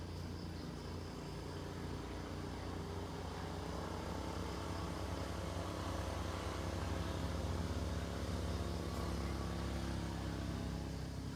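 Low, steady engine hum of a motor vehicle, growing slowly louder past the middle and easing off near the end.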